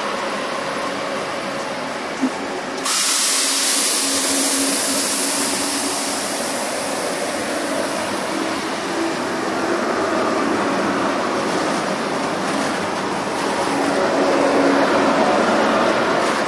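Renfe passenger train passing close at speed: a steady rush of wheels on rail and air, with a faint hum under it. About three seconds in it suddenly gets louder and hissier.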